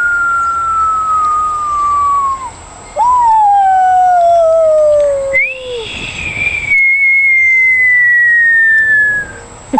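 A bird giving long, pure whistles that slide down in pitch like the whistle of a falling bomb, three in a row. The first fades out about two seconds in. The second ends in a sharp drop and a brief low rumble. The third starts highest and glides down over about four seconds.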